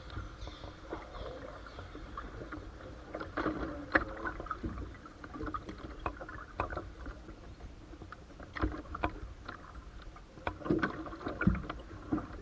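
A canoe being paddled: paddle strokes splashing and dripping in the water, with irregular sharp clicks and knocks, the loudest about four seconds in and near the end.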